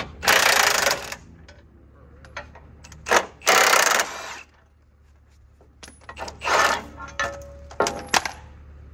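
Cordless impact wrench hammering in several bursts of up to about a second, backing out the bolts that hold a pickup's factory receiver hitch to the frame, with small metal clinks between bursts.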